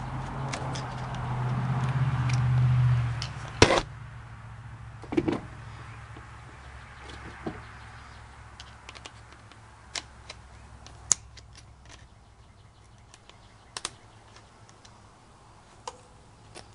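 Hand-tool work on the engine: a flat screwdriver clicking and tapping against a metal hose clamp and the parts around it, scattered single clicks that thin out and grow fainter. It opens with a few seconds of rising rustling and handling noise that ends in one sharp knock.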